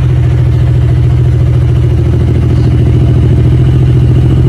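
Royal Enfield Continental GT 650's 648 cc parallel-twin engine idling at a steady, even pulse through an aftermarket Gursewak Big Shot slip-on exhaust, just after a cold start. The note is loud and deep.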